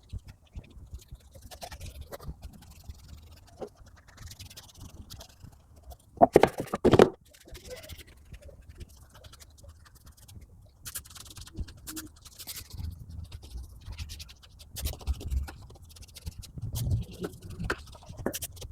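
Scrubbing and scraping of a detailing brush or cloth on car interior surfaces, irregular and scratchy, with two louder bumps about six and seven seconds in.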